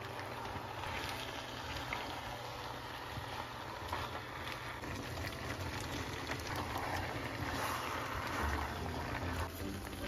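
Chicken and cabbage stir-fry sizzling steadily in a frying pan, with small clicks as a silicone spatula stirs it.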